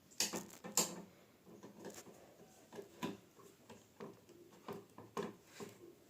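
Handling noise: a series of light clicks and knocks as objects are moved and set down, the two loudest within the first second.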